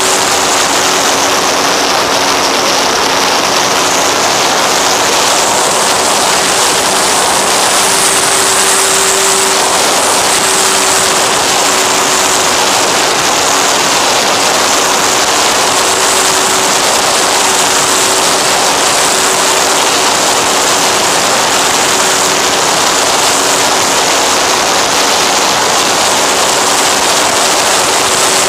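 FX-79 flying-wing FPV plane in flight, heard from its onboard camera: loud, steady wind rush over the microphone with a steady hum from the motor and propeller underneath.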